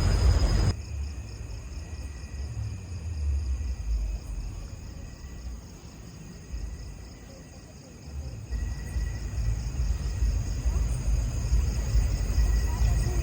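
Insects chirring in a steady, high, pulsing trill over a low rumble that drops away about a second in and comes back louder in the second half.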